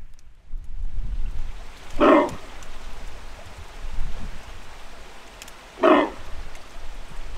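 A red deer hind giving two short alarm barks, about four seconds apart.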